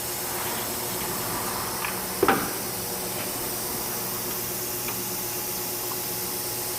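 Steady background hum and hiss, with one sharp knock about two seconds in and a few faint clicks: hard objects being handled.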